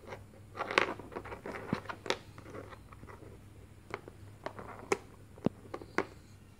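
Small plastic toy pieces clicking and tapping as they are handled and fitted onto a tiny toy doll: a few scattered light clicks over a faint steady low hum.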